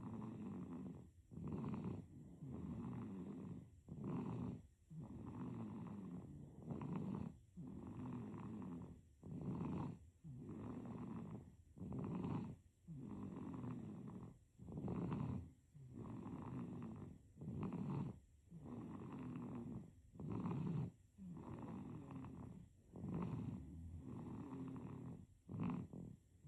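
A sleeping baby snoring in an even rhythm, about ten breaths in a row. Each breath comes about every two and a half seconds as a short louder snore and then a longer, softer one, with a brief quiet gap between breaths.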